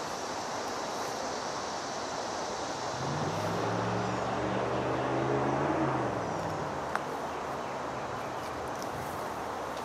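Steady hiss of road traffic. A vehicle engine drones past from about three seconds in, swelling and then dropping slightly in pitch before it fades at about six and a half seconds. A single sharp click comes near seven seconds.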